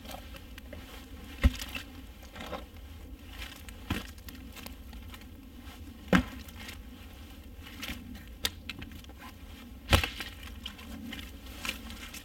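Split logs and bark slabs being pulled off a stacked-log reflector wall and tossed aside: about five sharp wooden knocks a couple of seconds apart, with rustling and scraping of wood in between.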